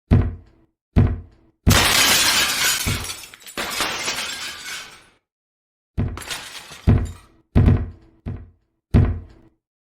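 An object being smashed and shattering: two hard blows, then a long crash of breaking and scattering pieces lasting about three seconds, then five more blows in quick succession.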